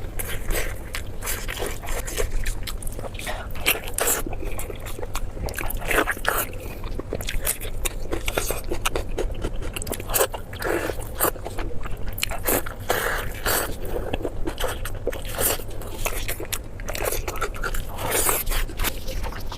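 Close-miked eating: repeated crisp bites and crunchy chewing in an irregular run of sharp crackles, with some scraping.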